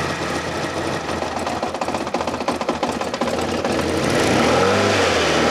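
Fiat FIRE four-cylinder carburetted petrol engine running at idle with a rapid, even pulsing. About four seconds in it gets louder and its pitch rises and falls, like a short blip of the throttle.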